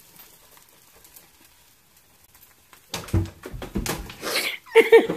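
A boy's laughter: nearly quiet for the first three seconds, then loud, breathy bursts of laughing and gasping, with a higher pitched laugh near the end.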